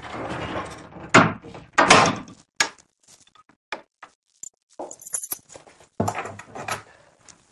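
Heavy wooden front door being pushed shut, with two loud knocks about one and two seconds in as it closes and latches. These are followed by small clicks, a brief high jingle, and rustling near the end.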